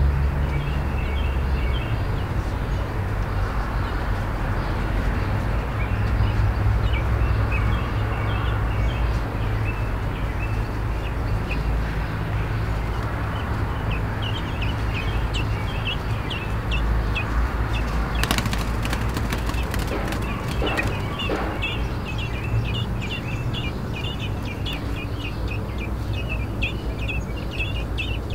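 American robin nestlings begging with short, high, rapid chirps, sparse at first and becoming a near-continuous chatter in the second half. A run of sharp clicks comes about two-thirds of the way through, over a steady low rumble.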